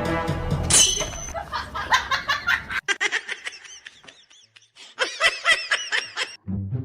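Background music that cuts out about three seconds in, with a person laughing in quick repeated bursts, strongest near the end.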